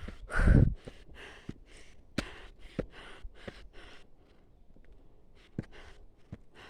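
A person breathing hard while climbing: one loud breath just after the start, then quick panting breaths, about two or three a second, that fade after about four seconds.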